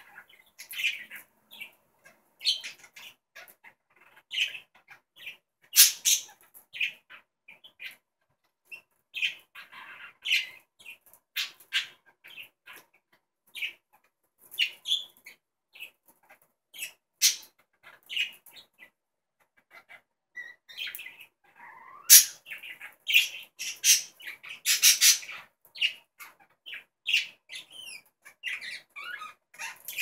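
Two budgerigars chirping and chattering: a busy, irregular run of short, high calls, with now and then a much louder, sharp call.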